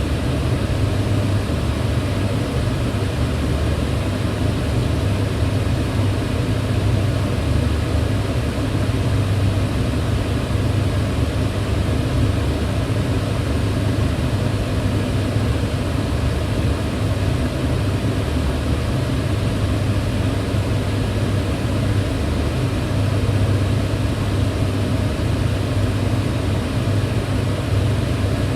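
Kitchen range hood fan running steadily: an even rushing of air with a low hum underneath.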